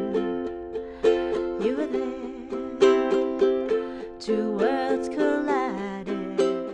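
Background music: an instrumental passage of repeated plucked notes and chords with no drums, fading out at the very end.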